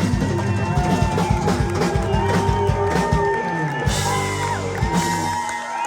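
Live rock band playing with electric guitar, bass and drums, with some singing and crowd whoops. The bass and drums cut off near the end as the song finishes.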